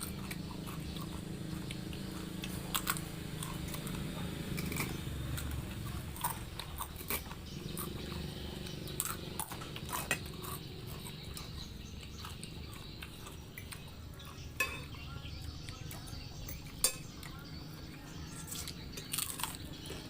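Someone eating fried noodles, chewing, with a sharp click of cutlery every couple of seconds over a steady low hum.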